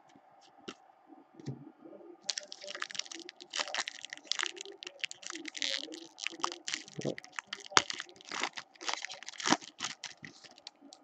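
Wrapper of an Upper Deck Ice hockey card pack being torn open and crinkled by hand: a dense run of crackles and tearing starting about two seconds in.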